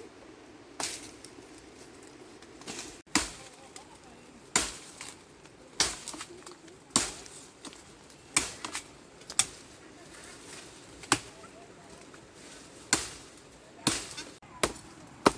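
Repeated sharp chopping strikes of a blade, spaced irregularly at about one every second or so, some coming as quick double hits.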